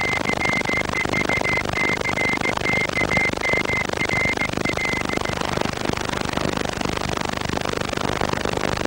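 Morse code beeps: a single high tone keyed in dots and dashes, stopping about five seconds in, over a constant heavy hiss.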